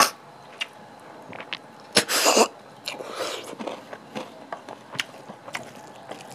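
Close-up slurping of cooked freshwater snails being sucked out of their shells, among small clicks of shells and mouth sounds. The loudest is a sharp, hissing slurp about two seconds in, with a softer one about a second later.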